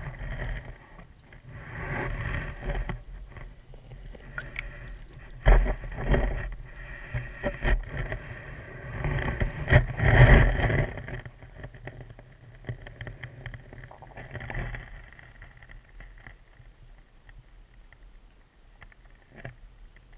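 Muffled underwater water noise picked up inside a GoPro's waterproof housing as it is pushed on a pole along a shallow stream bed, with dull knocks and scrapes of the housing and pole against the bottom. The water noise surges and the knocks come in the first half, and it settles quieter and steadier toward the end.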